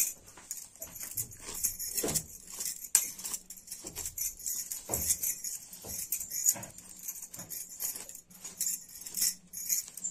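Repeated irregular strokes of a plastic comb through long hair, with bangles jingling on the wrists as the arms move.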